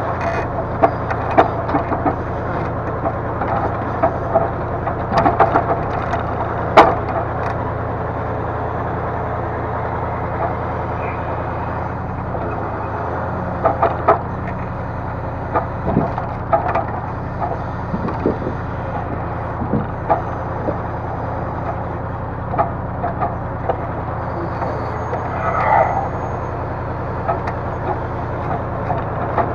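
Timber crane at work: the steady drone of the engine driving its hydraulics, with logs knocking and clattering as they are gripped and dropped, one sharp crack about seven seconds in.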